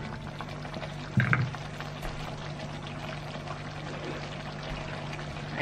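Creamy beef stroganoff sauce simmering in a frying pan, with a steady low hum underneath and a brief knock about a second in.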